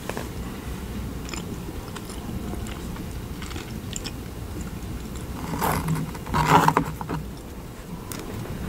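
Close-miked eating and handling sounds of macarons: soft chewing and small clicks as macarons are picked up from the table, with a louder burst a little past halfway.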